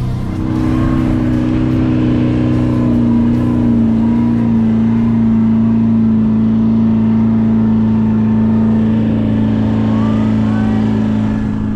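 Toyota LandCruiser engine running steadily under load as it tows a heavy caravan through soft sand, its pitch easing down a little a few seconds in and then holding.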